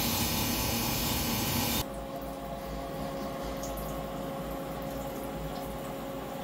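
CNC mill cutting a metal soft jaw with a small end mill under flood coolant: steady spindle tones over the hiss of the coolant spray. After about two seconds this gives way suddenly to a quieter steady machine hum with a single steady tone.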